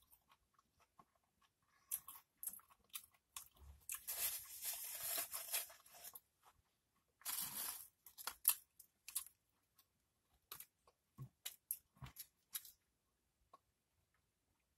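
Crisp crunching and chewing of Doritos tortilla chips eaten with cheese dip, in many short sharp crunches with two longer, denser stretches. The dry rustle of chips being picked from the bowl is mixed in.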